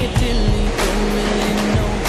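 Background music with a steady beat under sustained held notes.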